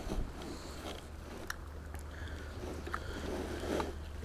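Quiet handling noise from a fishing rod and spinning reel as the line is worked: a few scattered faint clicks and rustles over a low steady rumble.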